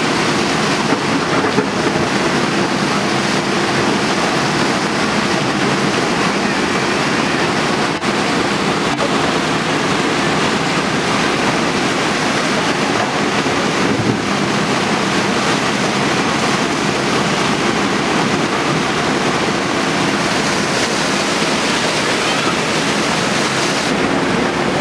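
Muddy flash-flood water rushing steadily across a street, with a steady engine hum underneath from a JCB backhoe loader working in the flow.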